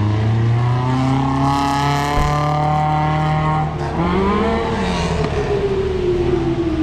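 A car engine accelerating hard. Its pitch climbs for a couple of seconds, breaks off about four seconds in, then rises briefly again and slowly falls away.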